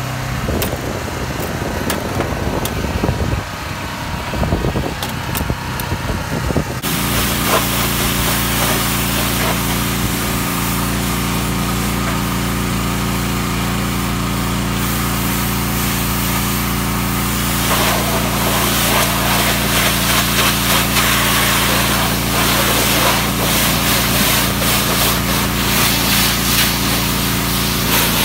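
Pressure washer's small engine running steadily. For about the first seven seconds a brush scrubs over the windshield; then the wand sprays water hard against the truck cab, a steady loud hiss that grows stronger later on.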